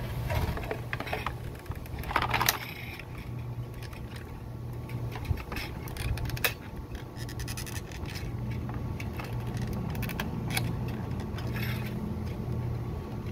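Plastic parts of a 2009 Toyota Corolla fuel pump module scraping and clicking against each other as the housing is slid onto its base by hand, with a longer, louder scrape about two seconds in.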